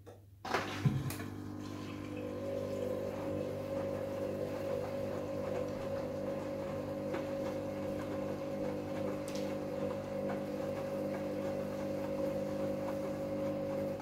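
Hoover Dynamic Next washing machine clicks on about half a second in, then runs with a steady hum and water noise that holds a constant pitch. It cuts off abruptly at the end.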